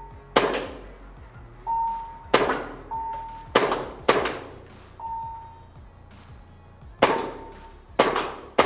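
A CO2 gas-blowback airsoft pistol, a Cybergun FN Five-seveN, fires seven single shots at irregular intervals. Each shot is a sharp crack of the gas charge and the slide cycling, with a short ring-out.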